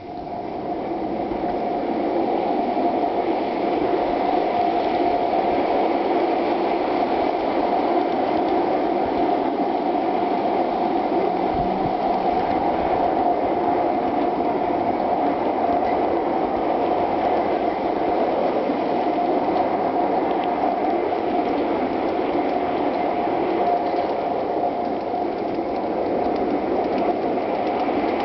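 Gauge-one garden-railroad cars' metal wheels rolling along the track, heard from a camera riding on one of the cars. A dense, steady rattle with a steady whine through it; it builds up over the first couple of seconds as the train gets moving.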